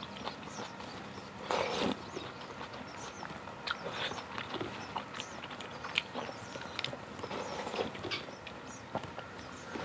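Close-miked eating of clam kalguksu: wet chewing with many small sharp clicks, and a short louder slurp of noodles about a second and a half in.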